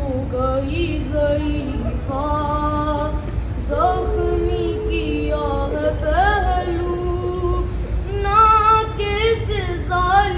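A boy's voice chanting a noha, a Shia mourning lament, unaccompanied, in long held notes with slides up into them.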